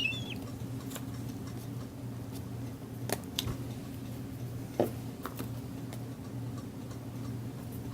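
A few light clicks and taps from handling craft materials at a work table, over a steady low hum; a bird's chirp trails off at the very start.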